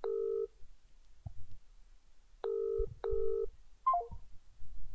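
Telephone ringback tone on an outgoing call waiting to be answered: a low double ring, two short tones in quick succession, after the tail of an earlier ring. A short higher chirp follows near the end.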